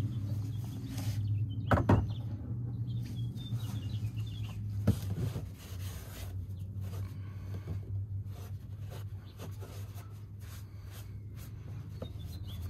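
Outdoor background with a steady low hum, faint bird chirps, and a few sharp knocks, the loudest about two seconds in and another about five seconds in.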